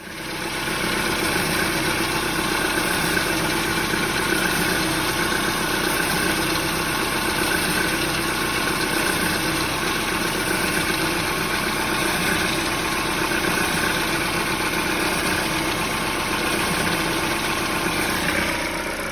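Peugeot 308 engine idling steadily.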